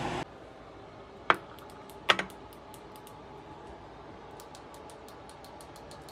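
A steady hiss stops abruptly at the very start. Then come two sharp clicks about a second apart, the second one doubled, and after them scattered faint, light high ticks over quiet room tone.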